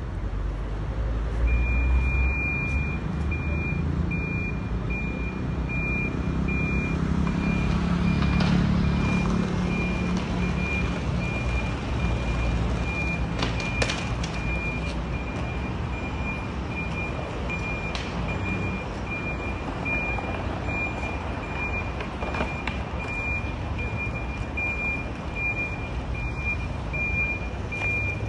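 Electronic warning beeper sounding a long, even run of short high beeps, starting a second or two in, over the low rumble of motor traffic that swells and fades.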